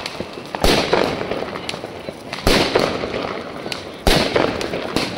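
Fireworks going off: three loud bangs roughly one and a half seconds apart, each trailing off into crackle and echo, with smaller pops in between.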